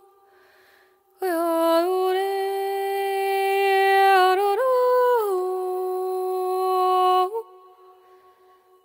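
A woman's solo voice singing a wordless melody in long held notes, with no accompaniment. The phrase starts about a second in, steps up to a higher note and back down, and fades out near the end.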